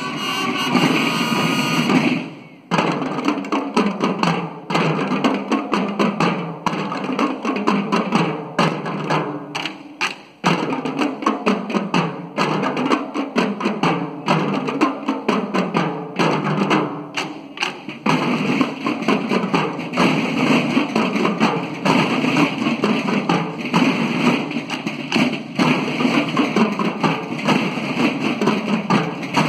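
A school drum corps' marching snare drums playing a rhythmic military-style cadence together, with short breaks about three and ten seconds in.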